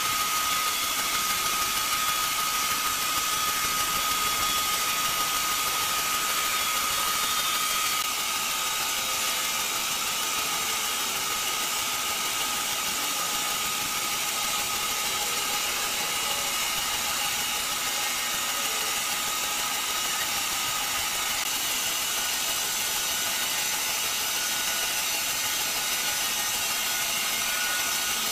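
Horizontal band sawmill running: a steady mechanical hiss with a high tone that is strong at first and grows fainter about eight seconds in.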